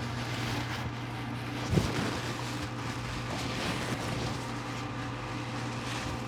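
Steady low hum with soft rustling of a paper towel wiping shockwave-therapy gel off skin, and one dull thump about two seconds in.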